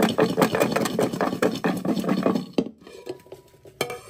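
Garlic cloves rattling inside a lidded steel bowl that is shaken hard in quick strokes, about six a second, to knock their papery skins off. The shaking stops abruptly about two-thirds of the way in, followed by a single sharp knock near the end.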